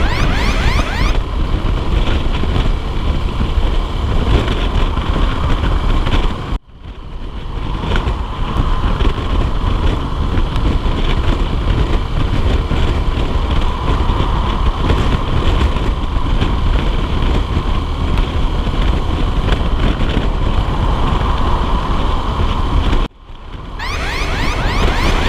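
Honda CBF125R motorcycle on the move, with heavy wind noise buffeting the microphone over the engine. The sound cuts out abruptly twice, once about a quarter of the way in and again near the end, and fades back up each time.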